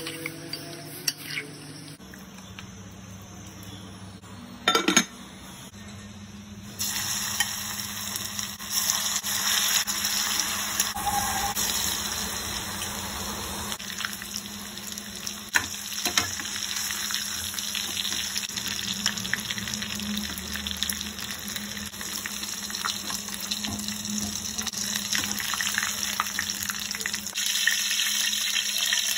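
A spoon mixing flour-coated chicken pieces in a bowl, with a few clicks and one loud knock. After several seconds, chicken pieces deep-frying in hot oil in a kadai take over: a steady, crackling sizzle.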